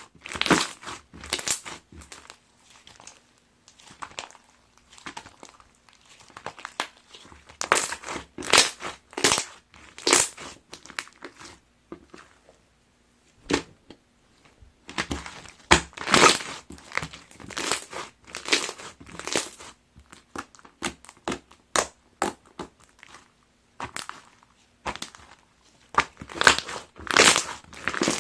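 Clear slime packed with plastic heart-ring toppings being squeezed and pressed by hand, giving crunchy, crackling sounds in irregular bursts with quieter pauses between.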